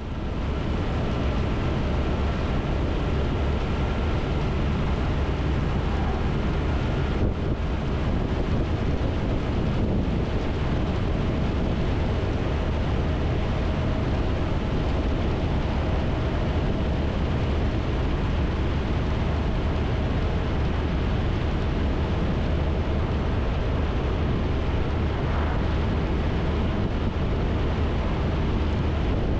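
Triumph Tiger 1200 three-cylinder motorcycle riding steadily along an open road: constant wind rush over the microphone with the engine running underneath.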